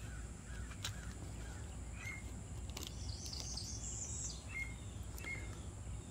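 Birds chirping over a steady low background hum: a few short chirps and, about three seconds in, a burst of high warbling notes, with a few faint clicks between.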